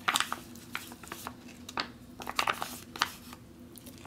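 A spoon scraping cheesy rice out of a flexible retort pouch into a ceramic bowl. It comes as a handful of short scrapes and crinkles of the pouch as the food slides out.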